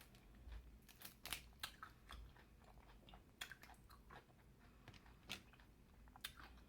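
A person chewing and eating seafood boil close to the microphone: quiet, irregular wet smacks and clicks of the mouth.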